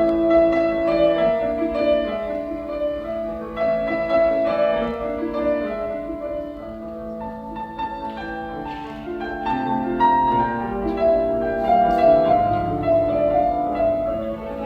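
Symphony orchestra playing classical music, with many pitched notes changing quickly. It falls to a quieter passage in the middle and builds again toward the end.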